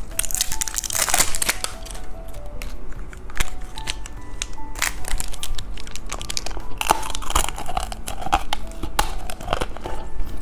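Candy packaging crinkling and crackling as it is handled and opened, over background music playing a simple tune of single notes.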